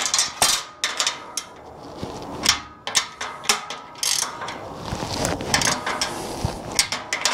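Ratchet wrench clicking in short irregular strokes with small metal knocks, snugging nuts down on the workbench frame's bolts.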